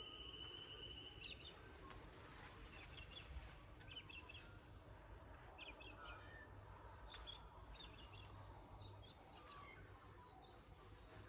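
Faint birds chirping outdoors: short high chirps every second or so over a quiet background.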